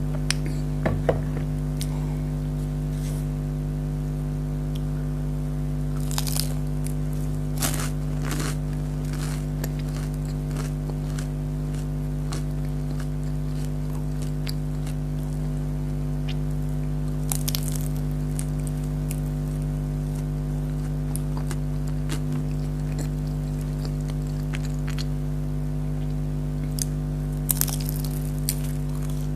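Close-miked eating of fried chicken spring rolls and fries: scattered crisp crunches and crackles from bites and chewing, clustered about a second in, in the quarter after the first five seconds, near the middle and near the end. A loud, steady electrical hum runs beneath.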